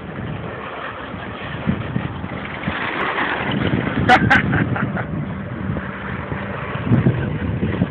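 Radio-controlled car running and sliding on loose dirt: its motor rises and falls in level, with tyres scrabbling on the gravel. There are two sharp clicks about four seconds in.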